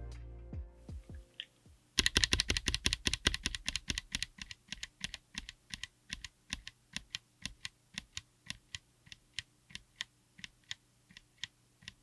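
Mechanical keyboard typing on Wuque Studio WS Quartz linear switches in a 60% board with an FR4 plate and an aluminium case. A fast flurry of keystrokes is followed by slower, evenly spaced single strokes, with the tail of music fading out at the start.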